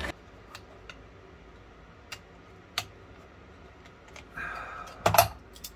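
Small metal clicks and taps of an antique pistol's lock parts being handled and fitted together, a few seconds apart, with one much louder sharp clack about five seconds in.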